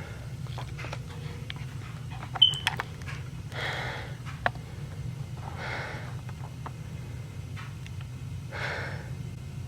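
A person breathing heavily in slow, audible breaths every two to three seconds, winded and sweating after a stressful job. A sharp click comes a little over two seconds in, with a few smaller clicks around it.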